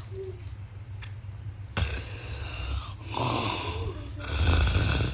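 A man snoring: rasping breaths about a second long, one after another, beginning about two seconds in.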